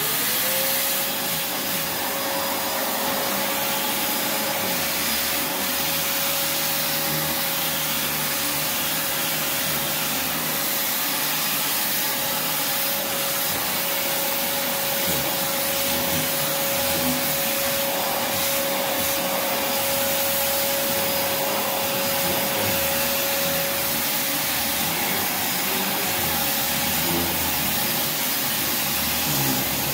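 Prolux X8 Elite backpack vacuum starting up and running steadily, a constant high motor whine over the rush of airflow. Its power head is being worked over a sealed rubber-backed mat that it sticks to even with the suction relief valve wide open.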